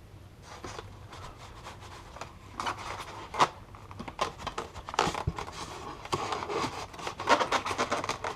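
Foam airplane parts and packing material being handled and pulled from the box: a run of crinkling, rustling and scraping that grows busier and louder from about two and a half seconds in.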